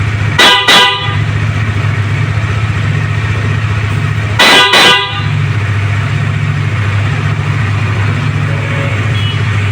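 Newly installed Black Horse dual horns giving two quick double beeps, one about half a second in and another about four and a half seconds in, over a steady low engine hum.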